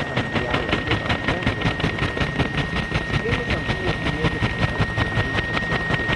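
Helicopter overhead: an even chopping of the rotor blades at about six or seven beats a second, with a steady high whine underneath.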